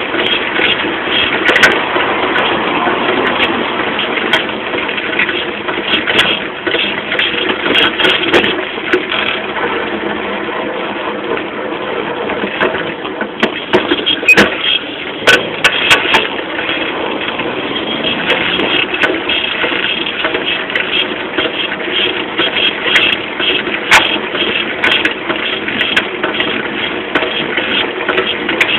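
Saltafoss moped being ridden: its small engine running under a continuous rush of wind and road noise, with rattles and sharp knocks from the frame and suspension over bumps, most of them a little past the middle and one more later on.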